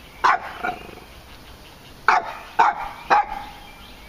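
A dog barking at something hidden under a shed: two barks near the start, then after a pause three more about half a second apart.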